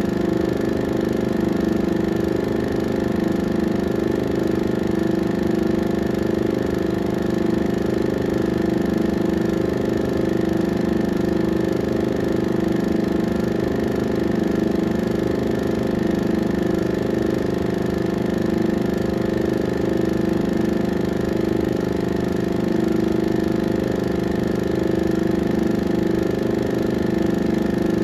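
16mm film projector running during transfer: a steady, unchanging mechanical hum with a fast fine clatter underneath.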